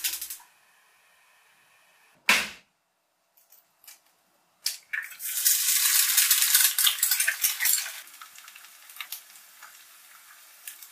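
An egg sizzling in hot oil in a square tamagoyaki pan on a gas burner. It starts with a loud burst of sizzling as the egg hits the pan about five seconds in, then settles to a quieter, crackling fry. One sharp knock comes about two seconds in.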